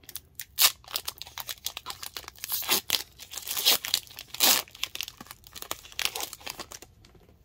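Foil wrapper of an Upper Deck hockey card pack being torn open and crinkled in the hands: a run of irregular crackling rips and crinkles, loudest in the middle.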